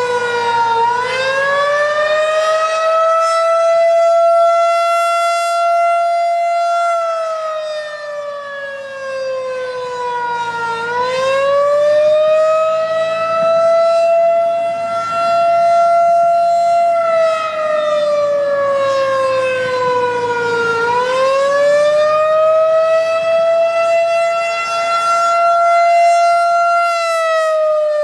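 Federal Signal 2001 DC electromechanical outdoor warning siren sounding the attack signal. The wail rises quickly, holds level for a few seconds, then slides slowly down, repeating about every ten seconds.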